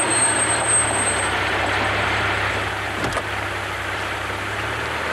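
Vintage Mercedes-Benz sedan pulling onto a dirt lot and stopping: a low engine drone with tyre noise, and a thin high squeal in the first second. There is a sharp click about three seconds in, and the engine drone stops just before the end.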